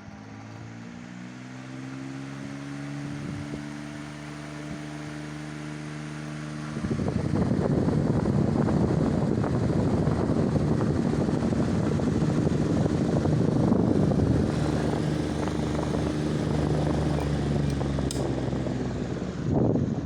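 Vintage Marelli electric fan running. Its motor hum rises in pitch as it spins up. About seven seconds in it turns suddenly much louder, with a steady rush of moving air over the hum.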